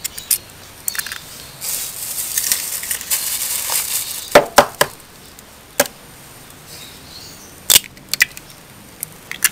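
Raw eggs being cracked open on the edge of a mixing bowl: a series of sharp shell cracks and taps, with a soft hiss for a couple of seconds in the first half.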